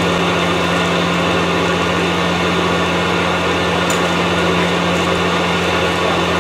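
A large diesel truck engine running steadily, a constant low hum under an even rushing noise.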